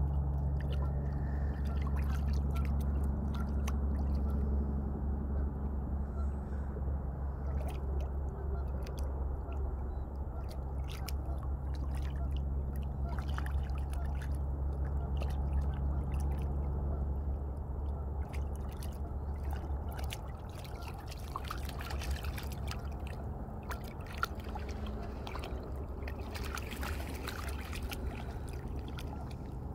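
Cocker spaniel wading in shallow river water: small splashes and trickling as its legs move through the water, with many short ticks throughout. A steady low hum runs underneath and weakens a little over halfway through.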